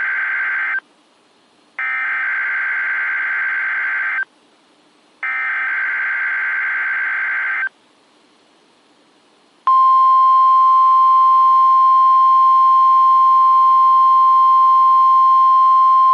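NOAA Weather Radio test tones. Three bursts of SAME digital header data, each a buzzing warble about two and a half seconds long with about a second of quiet between them. About two seconds after the last burst, the loud, steady single-pitch 1050 Hz warning alarm tone starts about ten seconds in and holds, the weekly test of the alarm that activates weather radio receivers.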